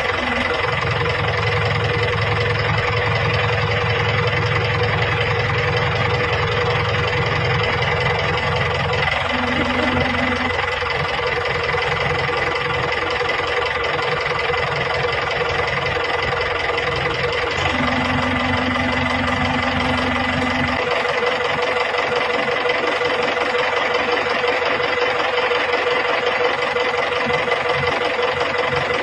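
A vehicle engine running steadily, with a constant high whine over it. The deep rumble shifts a couple of times and fades out about two-thirds of the way through, while the whine carries on.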